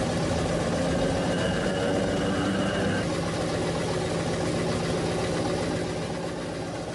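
A vehicle engine idling steadily, with a faint high whine that stops about three seconds in.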